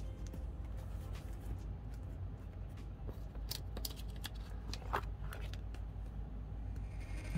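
Plastic photocard sleeves in an A5 ring binder being handled, with scattered soft clicks and rustles as cards are slid into the pockets and a page is turned, over a low steady hum.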